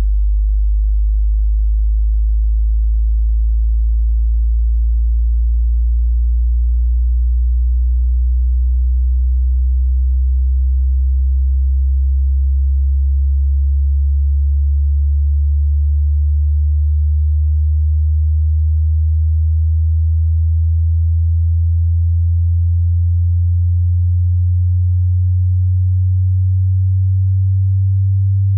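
Low pure sine test tone from a hearing test, gliding slowly and smoothly upward in pitch from about 50 Hz to about 100 Hz.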